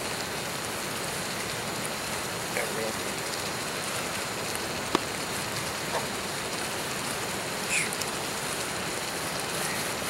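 Steady sizzling hiss of steak frying in a cast iron skillet over a small canister gas stove, with a few faint clicks.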